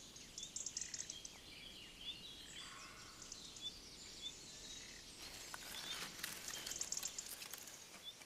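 Faint woodland ambience: small birds chirping in short, repeated high calls, with a patch of soft crackling about two-thirds of the way in.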